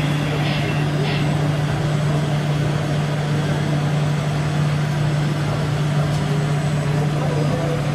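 Radio-controlled model truck running with a steady, unchanging low hum, like an idling engine.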